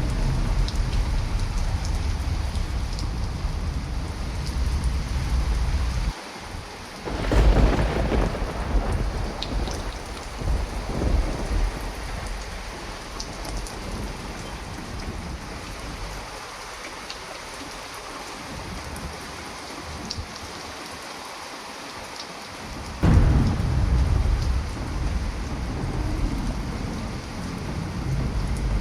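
Heavy rain pouring steadily, with thunder rumbling under it. Loud thunderclaps break in suddenly about seven seconds in and again about three-quarters of the way through, each rolling on as a long rumble, with a quieter stretch of rain between them.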